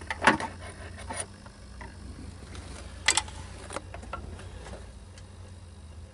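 Handling noise from the camera and hands moving in among the engine-bay hoses: rubbing and scraping with a few sharp knocks. The loudest knocks come just after the start and about three seconds in, over a faint steady low hum.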